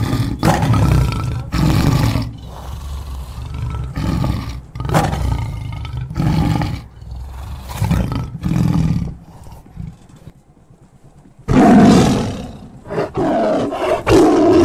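Wind buffeting the microphone of a moving motorcycle in loud, irregular gusts that drown out most other sound. There is a short lull about ten seconds in, then the strongest gust.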